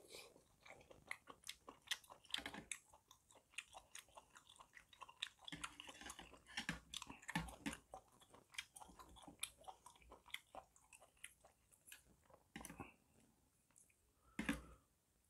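Quiet, close chewing of gopchang (cooked intestine) in a spicy stew: many small wet clicks and smacks of the mouth. One louder knock near the end as a spoon goes into the metal tin.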